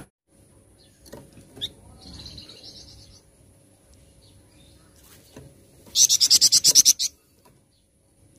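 Flamboyan songbird calling: scattered soft chirps and a faint high trill, then about six seconds in a loud, rapid, high-pitched trill of roughly ten notes a second lasting about a second.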